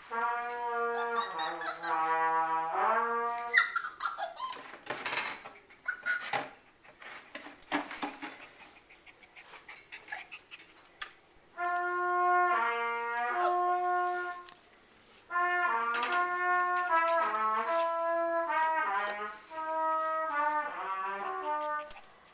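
Trumpet practice: held notes stepping down and back up, then after a pause filled with scattered clicks and scuffling, quicker runs of notes up and down the scale.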